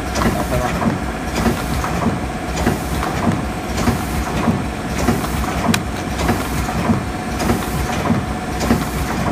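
K-cup filling and sealing machine running, its mechanism clacking in a steady rhythm of about three knocks every two seconds over a constant mechanical tone.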